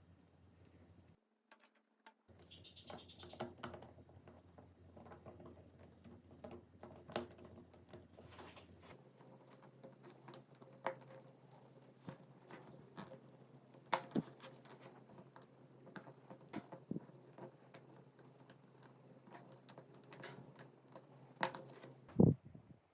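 Faint, irregular small clicks and taps of a mobile phone's plastic and metal parts being handled and worked on, with a few sharper clicks.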